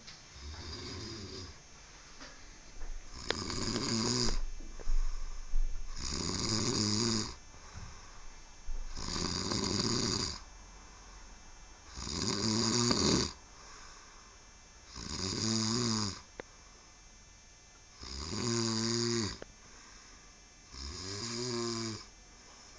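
A person snoring steadily, about eight loud snores in a row, one roughly every three seconds, each lasting a little over a second.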